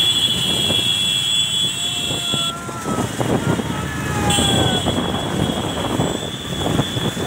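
Motor-vehicle noise with a steady high-pitched tone over it. The tone breaks off about two and a half seconds in and comes back a little after four seconds.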